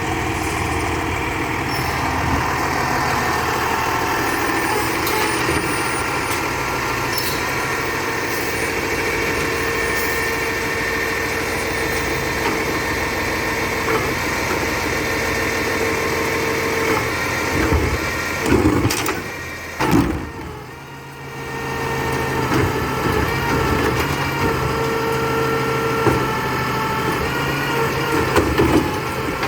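Labrie Expert 2000 recycling truck running steadily, with a few knocks about two-thirds of the way through and a short drop in loudness just after.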